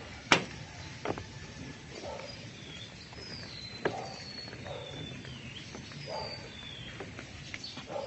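Footsteps crossing a metal-grating footbridge, with a sharp knock about a third of a second in and a few lighter knocks later. Birds give short, high chirps through the middle.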